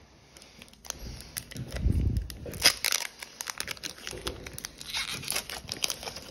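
Foil wrapper of a Pokémon trading card booster pack being torn open by hand: a quick run of crackling tears and crinkles, with a dull bump about two seconds in.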